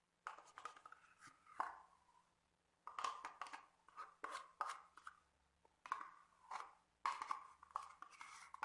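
Irregular scraping and knocking of a spoon as a pot of lemon yogurt is emptied into a mixing bowl, some knocks ringing briefly.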